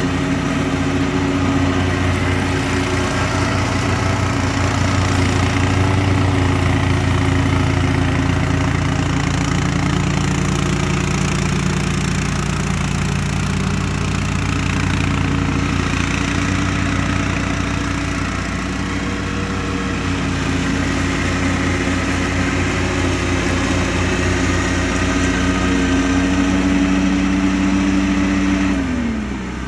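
Engine of a BCS 770 two-wheel walk-behind tractor running steadily, driving a 38-inch front-mounted mower. Near the end the engine pitch falls as the engine slows.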